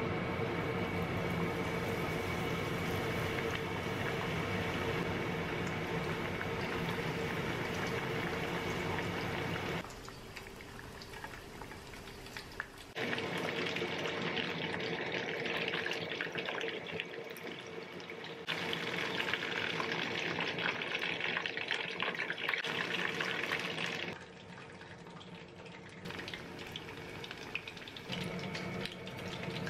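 Battered chicken thigh pieces deep-frying in hot oil, a steady sizzling and bubbling. A steady hum sits under it for roughly the first third and again near the end, and the sound changes abruptly several times.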